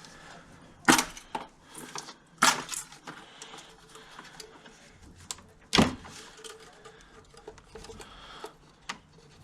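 Ignition leads being worked off a Ford Ka's ignition coil pack by hand: sharp plastic clicks and knocks, three loud snaps at about one, two and a half and six seconds in, with lighter taps between, over a faint steady hum.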